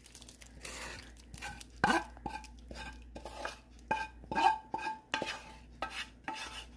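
Meat sauce being scraped out of a skillet into a plastic bowl of pasta: a run of scrapes and knocks of a utensil against the pan, several with a short ring.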